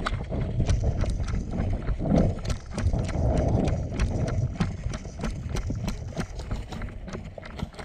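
Footsteps of a person walking briskly over hard ground with a handheld camera, a steady run of short knocks, over a low rumble of wind and camera handling.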